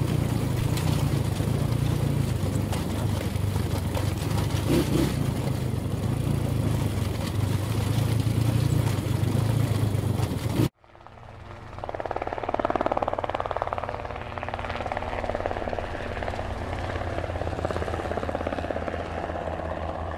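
Dirt bike engines running with heavy wind noise on a phone microphone. About ten seconds in the sound cuts off abruptly, and the steady hum of a camera drone's propellers follows.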